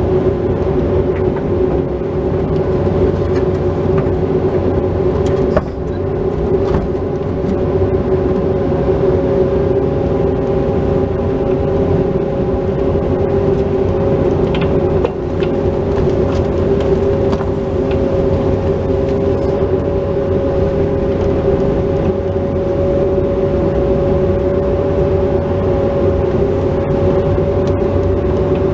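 Bobcat 337 mini excavator's diesel engine and hydraulics running steadily under working load as the bucket digs and dumps backfill, heard from the operator's seat, with a constant hum and a few light knocks.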